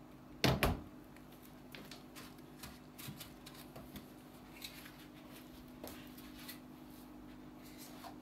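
Kitchen handling noises: a clunk about half a second in, then scattered light clicks and taps as bowls and containers are moved about and set down, over a steady hum.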